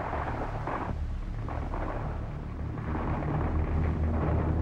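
Distant battle rumble under combat footage: a steady deep rumble with a few muffled swells, and no sharp individual shots.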